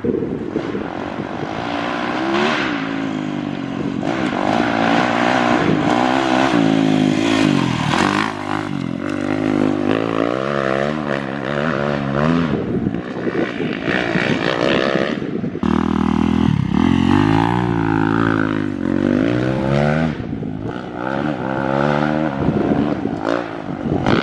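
Kawasaki KX450X dirt bike's single-cylinder four-stroke engine revving hard under load up a hillclimb, its pitch climbing and dropping again and again through the gears. It cuts off about fifteen seconds in and a second run starts right after.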